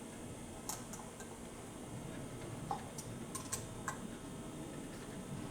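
Scattered light clicks and taps of hand tools and small metal parts, such as an Allen key on beadlock wheel bolts, handled at a workbench: about half a dozen sharp clicks at irregular intervals.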